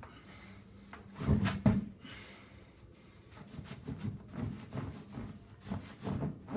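A person shifting on an inflated exercise ball: two louder thumps about a second and a half in as the hands come down onto the ball, then a run of softer, irregular thumps and rubs.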